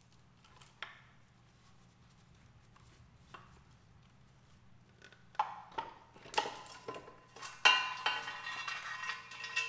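Metal clinking and rattling as a Porsche M96 engine's bearing carrier, with pistons, connecting rods and loose timing chains hanging from it, is lifted out of the case half. A few light taps at first, then from about halfway a run of clanks and chain rattle, the loudest clank about three quarters of the way through.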